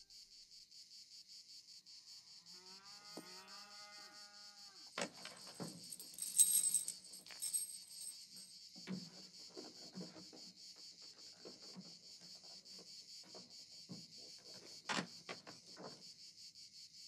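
Crickets chirring steadily, with a cow lowing once a few seconds in. After it come scattered soft knocks and rustles.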